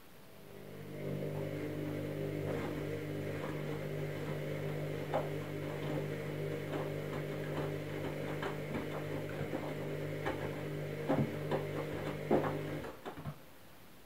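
Candy Smart Touch front-loading washing machine tumbling a load in water during a rapid wash. The drum motor's hum starts up about a second in and runs steadily, with the wet laundry and water sloshing and knocking in the drum. The motor stops near the end.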